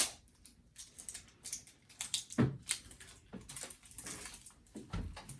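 Toy packaging being worked open by hand: irregular crinkles, clicks and taps of plastic and cardboard, with a dull knock about two and a half seconds in and another near the end.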